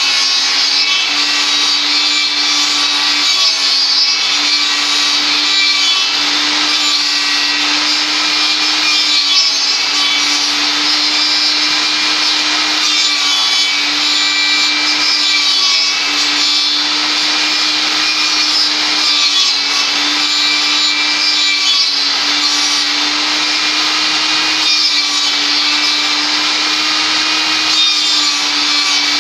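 Table saw running with its circular blade cutting into a log that is turned on a rod over the blade, shaping a round tenon. A steady motor hum under continuous cutting noise.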